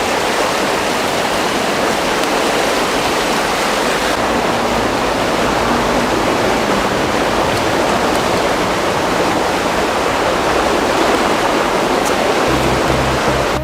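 Water rushing over a river weir spillway, running high: a steady, loud rush. Low music notes come in near the end.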